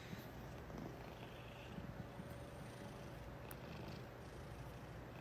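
A cat purring, faint and steady.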